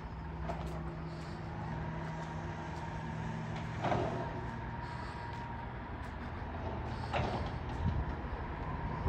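Diesel garbage truck running steadily, its engine hum joined by a thin steady whine, with sharp knocks about four and seven seconds in and another at the end.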